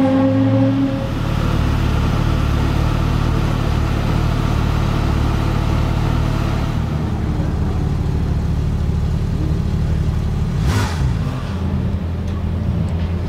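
Lexus LFA's 4.8-litre V10 held at a steady rev that drops away about a second in, then idling with a low rumble. A brief hiss cuts in about eleven seconds in.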